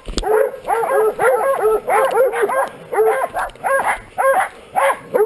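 A pack of hounds baying without a break, several overlapping barks a second, as they hold a bushpig at bay.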